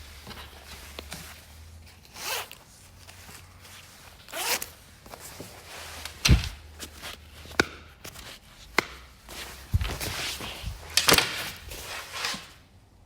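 Packaging being handled during an unboxing: short rustling swishes and sliding, sharp clicks, and a couple of low thumps as things are set down.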